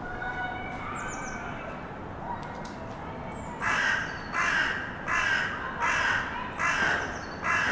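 A crow cawing: a series of about six loud, harsh caws at an even pace, starting about halfway through. Before them there are faint distant children's voices and a small bird's chirp.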